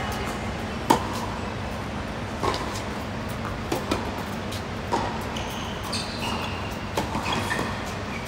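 Tennis rally on a hard court: sharp racket strikes on the ball and ball bounces every one to two seconds, the loudest about a second in. Short shoe squeaks come near the end, over a steady low background noise.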